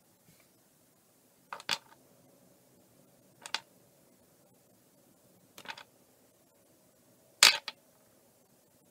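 Small hard baked polymer clay charms clicking against each other as they are handled and set down on a pile. There are four short clicks about two seconds apart; the first is doubled and the last is the loudest.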